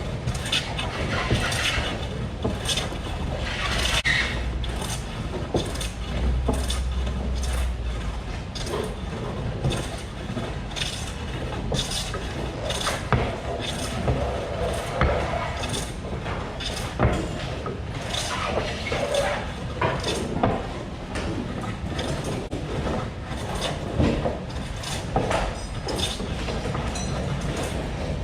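Treadle-driven spring pole lathe in use, with sharp wooden knocks recurring about once a second over a steady rattle of work noise.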